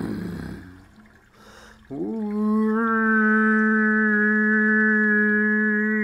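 Improvised vocal sounds from a human voice. A rough growl fades out at the start. After a short pause a single sung note scoops up into a steady held pitch, and it turns brighter about a second later.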